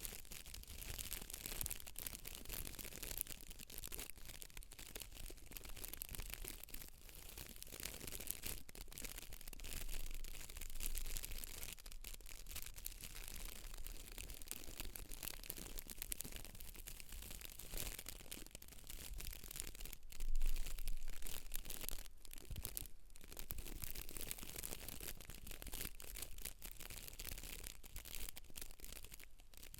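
Close-miked brushing and scratching through hair against the scalp: a dense, continuous crackle of many small clicks, a little louder for about a second around twenty seconds in.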